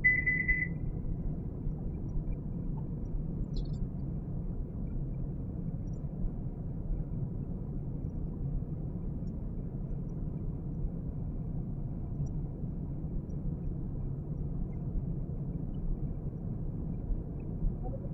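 A single short high electronic beep from the cooktop's touch control as it is pressed, then a steady low hum.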